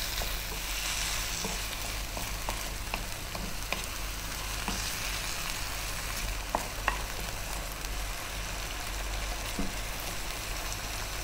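Chicken, broccoli and onion sizzling in a non-stick frying pan in a soy and oyster sauce with a splash of water, stirred with a wooden spatula that taps lightly against the pan now and then.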